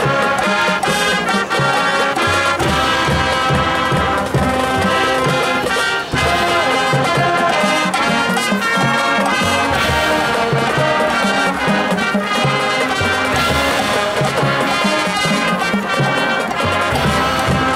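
Marching band playing: brass section over drums, with a steady beat in the low end.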